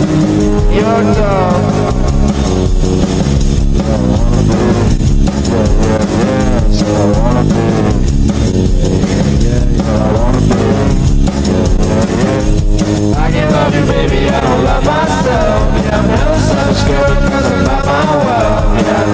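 Rock song with guitar and singing, playing loud and steady.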